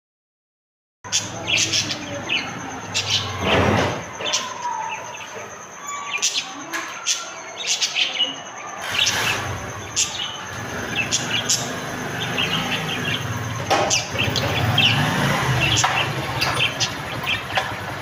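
Small birds chirping and chattering in many quick short calls, over a low engine rumble.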